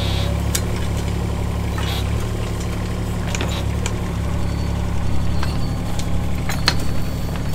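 Case CX17C mini-excavator's diesel engine running steadily under load while its bucket digs a trench, with scattered knocks and clicks of the bucket working in dirt and stones in the second half.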